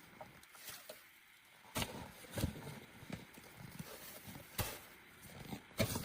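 Irregular sharp knocks and cracks, a second or more apart, several with a dull thud underneath.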